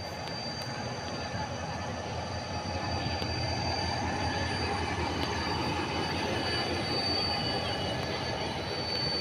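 WDG-4D diesel-electric locomotive running light past at low speed: a steady low engine rumble with a constant high-pitched whine, growing a little louder as it comes closest about seven seconds in.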